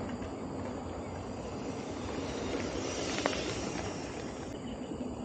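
Steady rolling noise of a mountain bike riding on a dirt track, with one sharp click about three seconds in.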